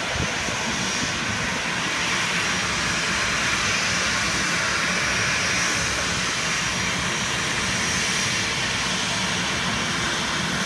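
Boeing 737 airliner's jet engines at taxi power: a steady jet roar with a thin high whine over it, swelling a little midway, as the aircraft taxis in after landing.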